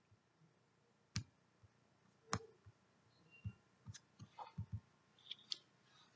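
Faint computer mouse clicks, about ten at uneven spacing, with a quick run of them about four seconds in.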